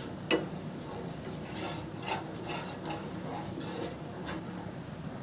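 Wooden spatula stirring and scraping thick tomato-chilli chutney in a non-stick pan, with one sharp knock against the pan about a third of a second in and softer scraping strokes after it.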